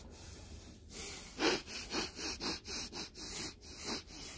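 A baby huffing and snorting sharply through the nose, in a quick run of short breaths about three or four a second.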